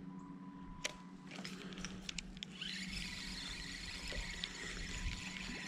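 Spinning reel being cranked to wind in line and retrieve the lure: a few light clicks, then a soft steady whir from about halfway through, over a low steady hum.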